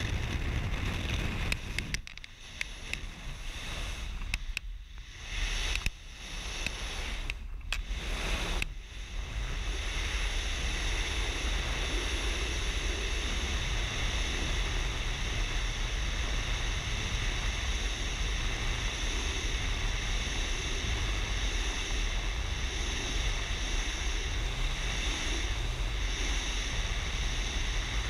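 Freefall wind rushing over a helmet-mounted camera as a wingsuit skydiver leaves a small plane. It is uneven, with several sudden drops over roughly the first nine seconds, then a steady, even rush.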